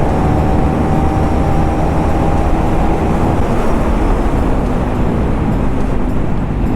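KTM Duke 390 single-cylinder engine running on the move with its dB killer removed, mixed with heavy wind rumble. The engine note holds steady for about three seconds, then gives way to a lower note.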